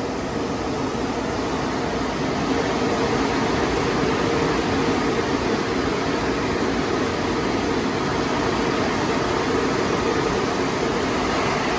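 Automatic car wash's overhead air-dryer blowers running: a steady rush of air with a hum under it.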